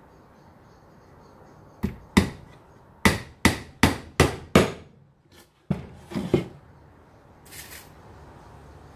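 Claw hammer driving small nails into an old wooden box: two sharp blows, then a quick run of five, then a few more after a short pause.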